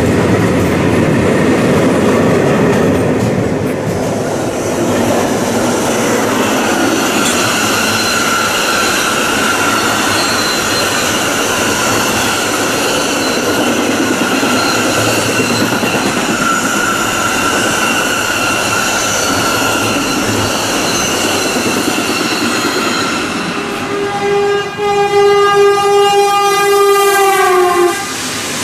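Renfe freight train running past, its wagons rumbling over the rails. Near the end the locomotive's horn sounds one long note for about four seconds, dropping slightly in pitch just before it cuts off.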